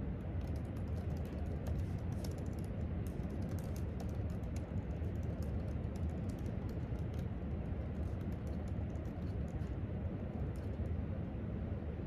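Typing on a laptop keyboard: a quick, uneven run of light key clicks over a steady low room hum.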